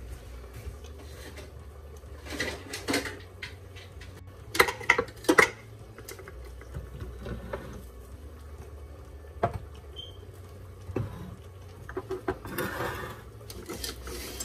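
Kitchen handling noises: scattered clicks and knocks as a plastic blender jar and a cup are picked up and set down on a granite countertop, with a quick cluster of sharp clicks about five seconds in and some rustling near the end, over a low steady hum.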